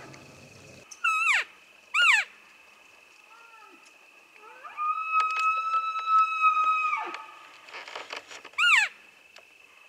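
Elk calling: three short, steeply falling mews, and one long high bugle whistle held about two seconds, sliding up at the start and dropping off at the end.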